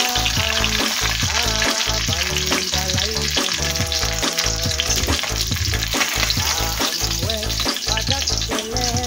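Tilapia sizzling in hot oil in a wok while it is moved with a spatula, over background music.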